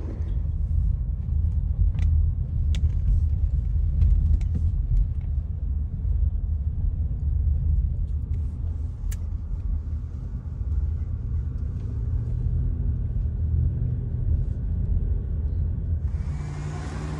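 Low, steady rumble of a car driving in the rain, heard from inside the cabin, with a few sharp ticks over it.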